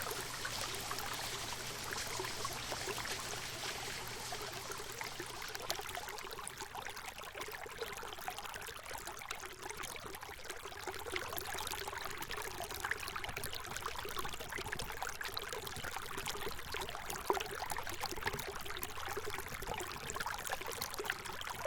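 Running water: a steady stream or river flowing, with a fine trickling and splashing texture.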